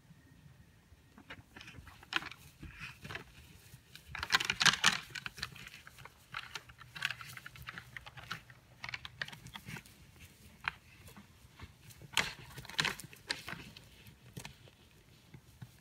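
Two mule deer bucks sparring, their locked antlers clicking and clacking in irregular bursts, loudest about four to five seconds in and again about twelve to thirteen seconds in.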